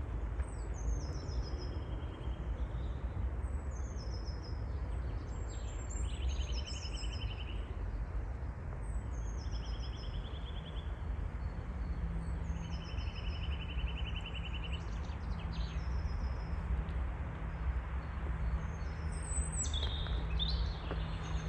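A songbird singing the same short phrase over and over, every three to four seconds: a run of high falling notes ending in a lower trill, over a steady low rumble.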